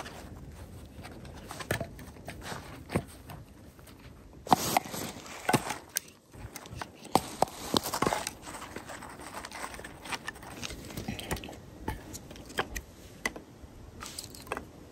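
Pieces of split firewood knocking and scraping against each other as they are stacked by hand, a run of sharp wooden clacks that is busiest from about four and a half to eight seconds in. Near the end, thin kindling sticks rustle and tick as they are laid on top.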